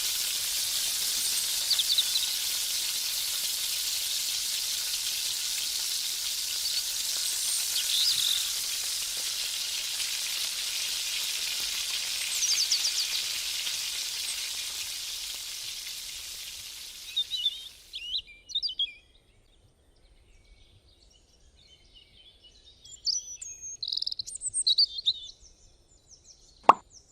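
Chicken pieces deep-frying in hot oil: a steady, high sizzle that fades away about seventeen seconds in. Birds chirp over it and on their own afterwards, and a sharp click comes near the end.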